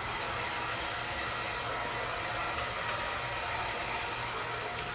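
Handheld hair dryer running steadily, blowing loose cut hair off after the haircut; it switches off at the very end.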